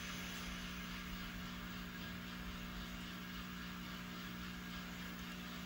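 N scale model freight train rolling slowly along the layout track: a steady hum with an even hiss.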